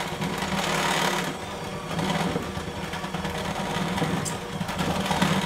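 Electric hand mixer running steadily, its beaters churning a stiff, crumbly peanut-butter and powdered-sugar dough in a glass bowl.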